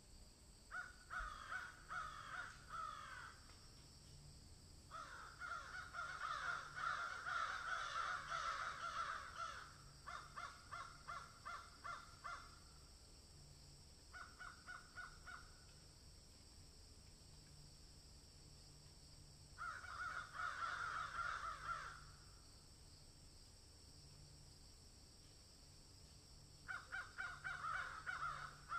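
Harsh, rapidly pulsed animal calls in repeated bouts of a few seconds, with pauses of a few seconds between them.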